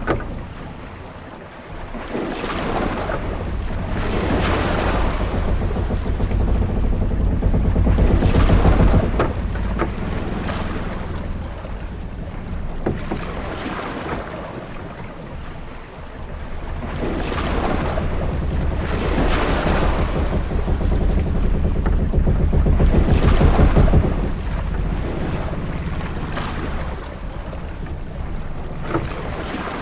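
Sailing ship at sea: waves washing against the hull and wind rumbling, rising and falling in slow swells, with a few short knocks from the ship.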